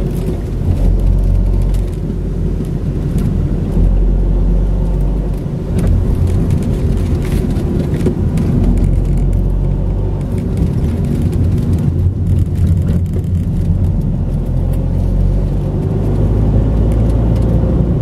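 A car being driven: a continuous low rumble of engine and road noise that swells and eases every few seconds, with faint scattered clicks.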